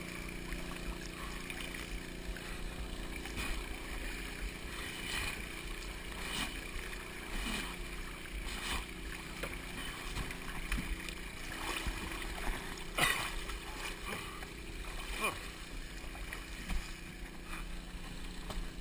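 Pond water sloshing and splashing around a person wading through it, with a sharper splash roughly every second or so; the loudest splash comes about two-thirds of the way through.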